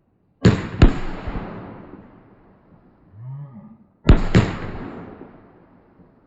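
Fireworks exploding: two loud bangs about three and a half seconds apart, each a quick double crack followed by a long fading rumble.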